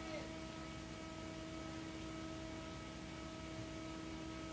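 A faint, steady electrical hum with hiss from a live band's sound system: one held pitch with its overtones, unchanging.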